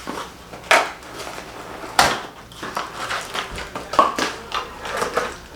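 Cardboard box of a power adapter kit being handled and opened, with rustling and three sharp knocks as the parts inside shift and fall out.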